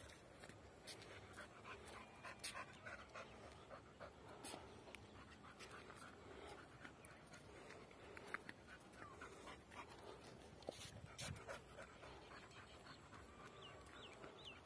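A pit bull-type dog panting faintly as it walks, with scattered light clicks and a few sharper knocks.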